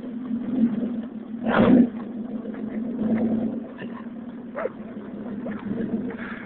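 Mazda 929 engine held at high revs during a burnout, the driven tyres spinning on the slab, with a brief louder surge about a second and a half in.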